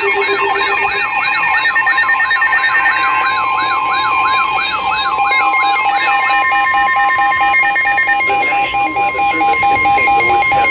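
Emergency alert tones from severe thunderstorm warning broadcasts, several overlapping. A siren-like electronic wail sweeps up and down about three times a second and stops about 6 s in. A steady single-pitch alert tone joins about 3 s in, and an evenly pulsed beeping starts about 5 s in.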